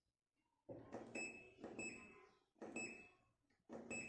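Fresh automatic washing machine's control panel: about four button presses, each a small click, most followed by a short high electronic beep, as the spin-only program is selected.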